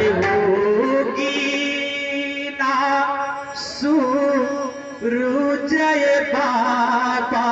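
Devotional chanting (kirtan): a voice holds long notes that waver and slide from pitch to pitch, over steady accompanying tones.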